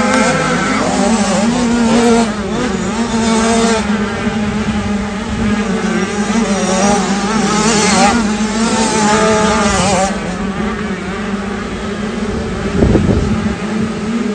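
Several 65cc two-stroke motocross bikes revving hard as they pass close by, their engine notes repeatedly rising and falling as the riders work the throttle. A steady low drone runs underneath, and there is a single low thump near the end.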